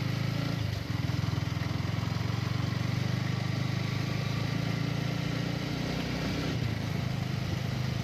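Motorcycle engine running steadily under way, a low pulsing drone that dips briefly a little under a second in.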